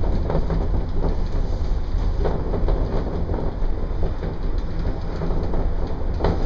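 Steady rumble and rushing noise of the Shonan Monorail's suspended car running along its overhead rail, heard from inside the car.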